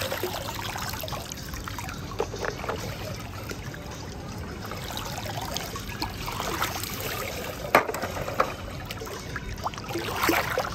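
Water splashing and trickling as toy cars are dropped into a pool of water, with a few sharp knocks, the loudest about three-quarters of the way through.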